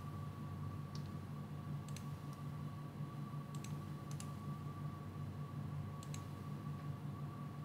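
About half a dozen sharp clicks from a computer mouse and keyboard, several of them in quick pairs, spaced irregularly over a steady low electrical hum with a faint high whine.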